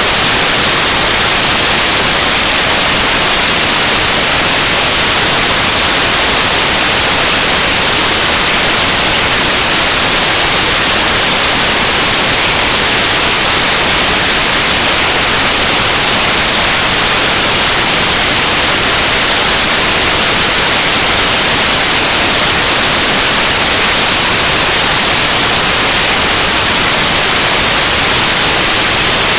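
Loud, steady static hiss from the webcam's audio, unchanging throughout, with no voice or singing showing through it.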